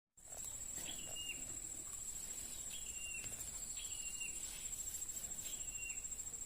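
A high, steady insect trill, a cricket or cicada, with a bird repeating a short call every second or two.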